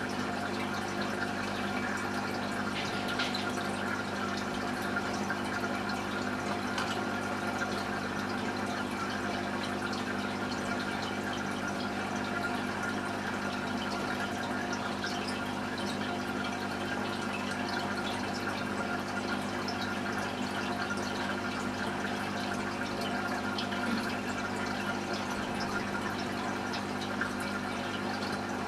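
Aquarium pump running: a steady hum with water trickling and splashing.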